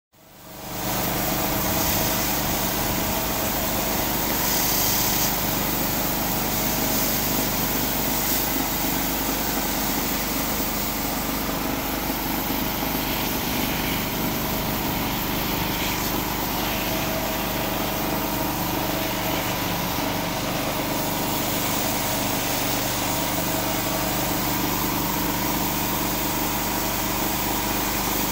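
Pressure washer running steadily, with the hiss of its rotary surface cleaner's spinning water jets on concrete.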